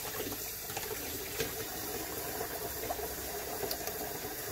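Kitchen faucet running in a steady stream, the water falling onto a disposable face mask held under it and splashing into the sink basin.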